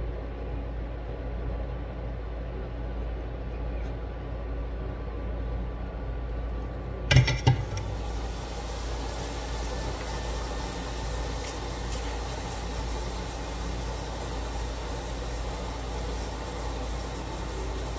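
Steady low hum with a hiss, and two sharp knocks about seven seconds in, half a second apart; after them the hiss turns brighter.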